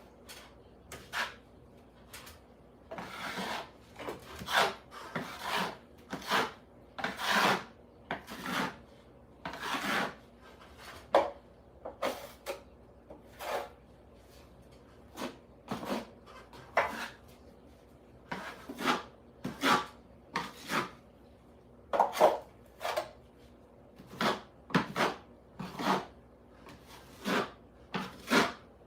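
Irregular run of rasping strokes from a hand tool worked against a hard surface, about one or two a second with a few short pauses.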